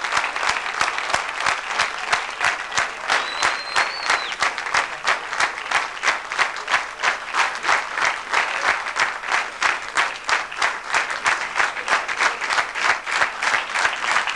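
Audience applauding, the clapping soon settling into a steady rhythm of about three claps a second, clapped in unison.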